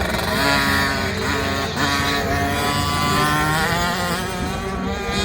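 Husqvarna TC50 50cc two-stroke mini motocross engines revving as the bikes ride the sand track. The pitch rises several times as they accelerate, dropping back between rises.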